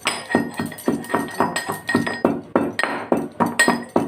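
Whole spices (bay leaf and cloves) being pounded with a pestle in a mortar: a steady run of sharp knocks, about three strokes a second.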